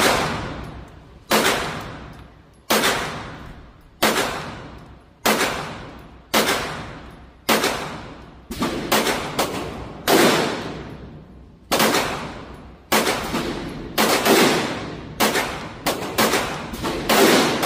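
Canik SFX Rival 9mm pistol firing about fifteen shots at a steady, unhurried pace of roughly one a second, a few coming as quicker pairs. Each sharp report rings out in a long echo in the indoor range.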